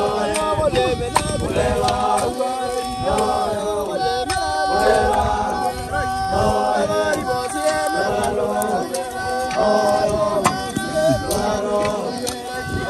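A group of men chanting together in unison, a rhythmic work chant of held notes in short repeated phrases. Now and then a sharp knock cuts through the chant.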